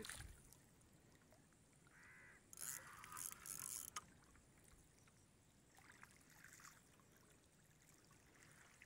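Near silence, broken by a few faint short sounds about two to four seconds in and again around six seconds in.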